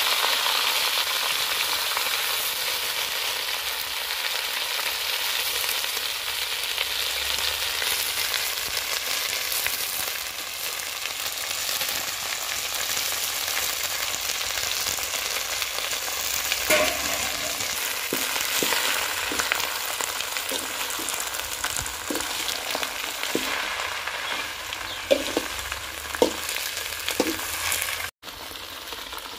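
Thuthuvalai leaves sizzling and frying in hot oil in a kadai, the hiss loudest at the start and then settling to a steady level. A spatula knocks and scrapes against the pan now and then in the second half, more often near the end.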